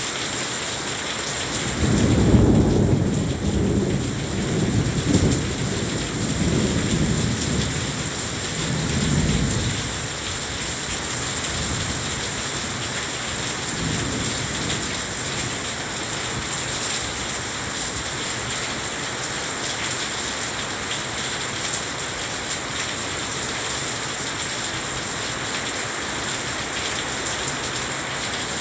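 Heavy rain pouring steadily. A roll of thunder rumbles low beneath it from about two seconds in, in several swells that die away by about ten seconds.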